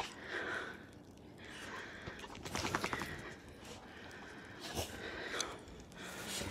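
Faint crunching and scuffing of steps in snow, with a short run of quick clicks about halfway through.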